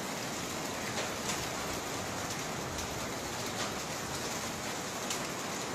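Steady rain falling, with scattered sharper drop ticks; the rain is carrying volcanic ash and grit from an erupting volcano.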